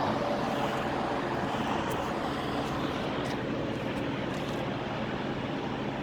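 Steady background vehicle noise, a continuous low engine hum with no distinct knocks or other events.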